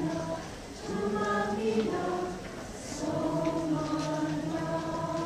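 A large community choir of men and women singing held notes in harmony, with short breaks between phrases.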